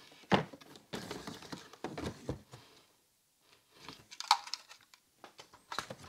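Packaging being handled during an unboxing: irregular rustling and crinkling with light knocks, and a short pause about halfway through.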